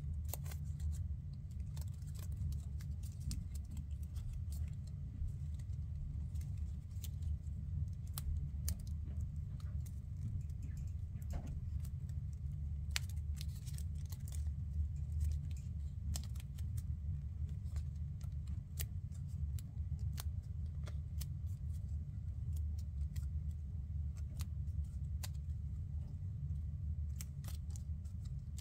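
Origami paper crinkling and crackling as hands fold and pinch it into shape: scattered sharp ticks and crackles over a steady low rumble.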